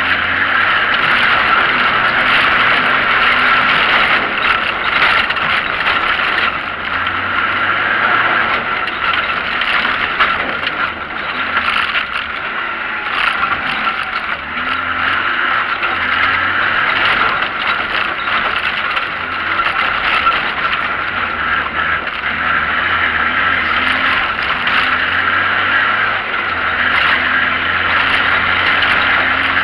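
Off-road 4x4's engine running as it is driven along a rough dirt track, heard from inside the cab, its pitch slowly rising and falling with the throttle. A steady noise of tyres and rattling over the dirt sits on top of it.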